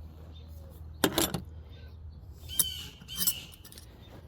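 Birds calling: a short harsh squawk about a second in, then two brief chirping calls near the end.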